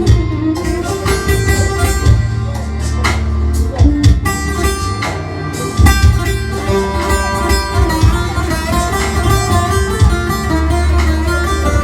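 Instrumental break of a Turkish folk song: a bağlama (saz) plucking the melody over a steady bass, with occasional percussion strikes and no singing.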